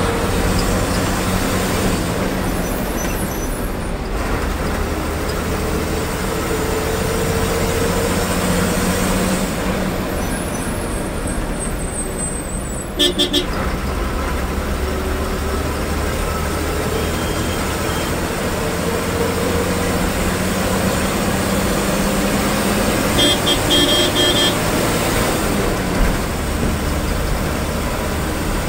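Diesel bus engine heard from inside the cab, pulling through the gears so that its note rises again and again, over steady road rumble. Short horn toots sound about halfway through and again near the end.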